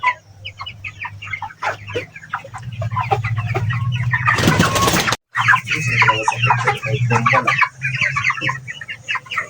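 A flock of chickens clucking and calling together, with a steady low hum underneath. About four and a half seconds in there is a loud, brief rushing noise, then the sound cuts out for a moment before the clucking resumes.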